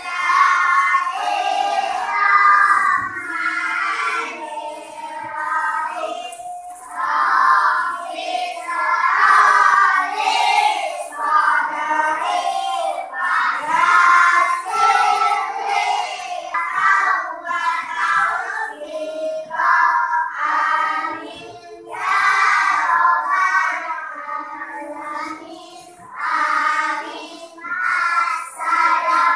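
A child singing a song in phrases, with steady musical accompaniment underneath.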